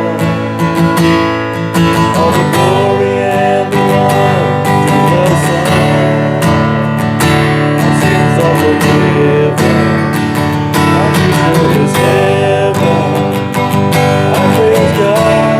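Worship band music between sung verses, led by a strummed acoustic guitar keeping a steady rhythm under sustained chords.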